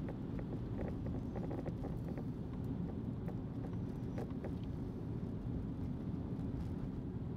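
Car driving along a paved street, a steady low rumble of engine and tyres, with scattered light ticks in the first couple of seconds and again around four seconds in.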